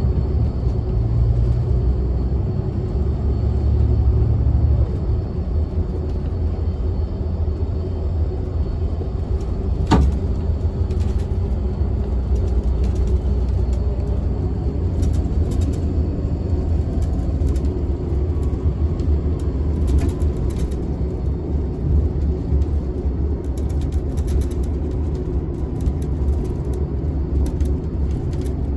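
Bus cabin on the move: the engine and road give a steady deep rumble. A single sharp knock comes about ten seconds in, and faint clicks and rattles come in the second half.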